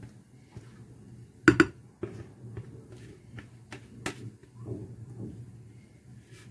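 Kitchenware knocking and clinking as semolina cake batter is poured from a mixing bowl into a glass baking dish: one sharp knock about one and a half seconds in, then lighter taps and clinks, over a low steady hum.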